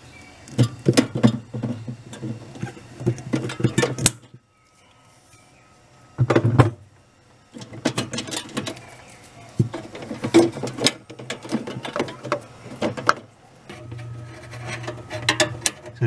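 Irregular clicks and rattles of hands working wire connectors, clips and a strap among a fridge freezer's aluminium evaporator fins while freeing the defrost heater element, with a pause about four seconds in.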